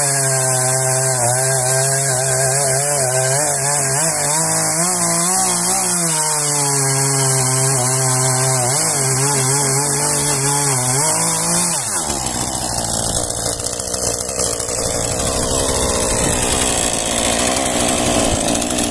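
McCulloch CS 350 two-stroke chainsaw cutting through a log under load, its engine pitch wavering as it bogs and picks up again. A little past halfway the pitch drops sharply as the throttle is let off. The saw then carries on with a rougher, noisier sound.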